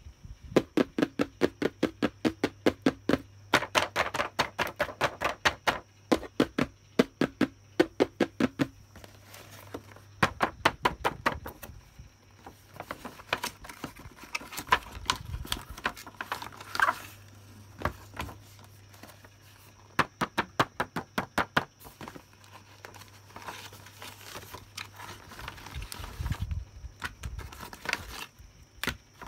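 Fingernails tapping in quick runs on boxed-doll packaging, cardboard and clear plastic window, with a hollow ring. After about nine seconds it turns into quieter handling: the boxes are picked up, rubbed and scratched, with scattered taps.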